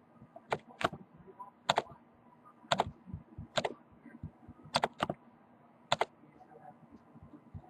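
About eight sharp, separate clicks of a computer's keys or buttons being pressed, spread unevenly over several seconds, two of them in quick pairs.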